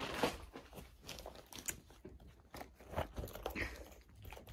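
Rustling and crinkling of material being handled, with scattered small clicks and knocks, the sharpest about three seconds in.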